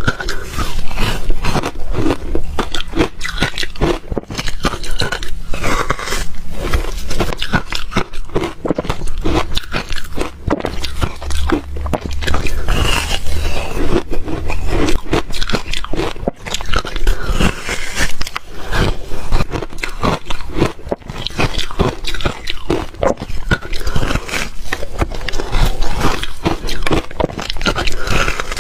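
A person loudly crunching and chewing shaved refrigerator ice, a dense run of crisp bites and crunches with no pauses.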